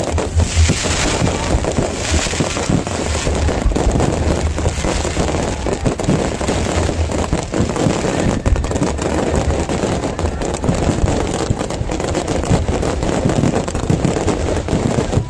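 Aerial fireworks display: a dense, unbroken barrage of bangs and crackling from many shells and stars bursting at once.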